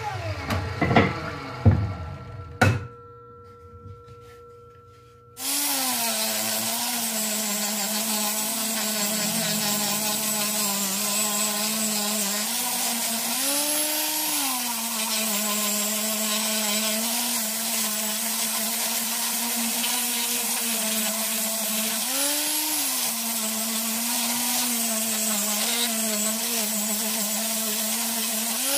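A few wooden knocks, then an angle grinder with a sanding disc starts running and sands a pallet-wood slat with a steady motor hum and a hiss of abrasive. Its pitch jumps up briefly about three times as the motor speeds up off the load.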